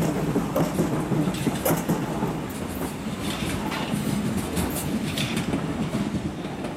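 Hamburg U-Bahn DT5 train rolling away, its wheels clicking over rail joints at uneven intervals above a steady rumble that fades gradually as it recedes.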